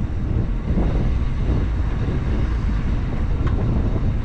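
Jeep Grand Cherokee WJ engine running at low speed as it crawls over a rock slab, with wind rumbling on the microphone.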